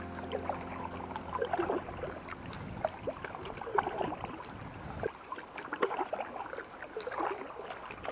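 Kayak paddle strokes in calm river water: irregular small splashes, plops and drips off the paddle blades, from an inflatable kayak being paddled.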